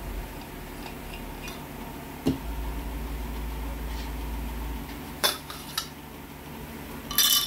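Metal air-rifle parts and tools clinking as they are handled and set down on a table. There is a knock about two seconds in, two light clinks a little after five seconds, and a sharp cluster of high clinks near the end.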